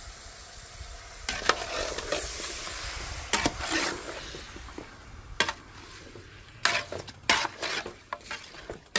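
Food sizzling in a hot pan while a utensil stirs it, scraping and knocking against the pan several times.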